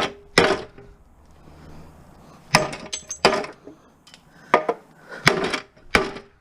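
Hammer blows on metal, about seven sharp irregular strikes, each ringing briefly, knocking at a press-fitted part on a lawn mower.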